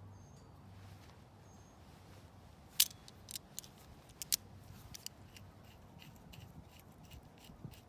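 Metal hand tool clicking as the jaws of wire strippers work a ring terminal onto a stripped wire: one sharp click about three seconds in, then a run of lighter, irregular clicks.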